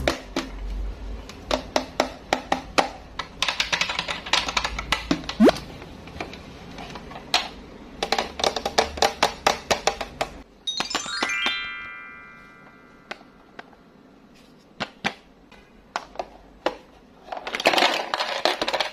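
Small hard candies clattering against plastic toys in many sharp clicks and rattling runs. There is a short rising whistle about five seconds in and a falling run of chime-like notes near the middle.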